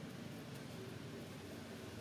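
Faint, steady background hiss with no distinct sound in it.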